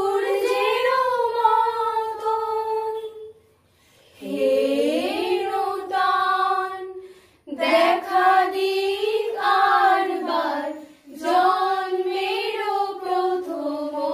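Three young women singing a song together with no instruments heard, in long sung phrases parted by short breaths.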